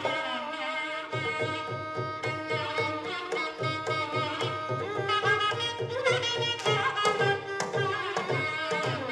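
Carnatic music: a clarinet plays an ornamented, gliding melody over a steady rhythm of mridangam strokes.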